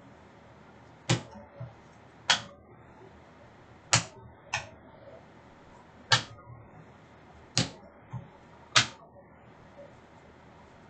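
Hockey trading cards being handled and snapped down on a table: about eight sharp slaps at irregular intervals, roughly one every second or so.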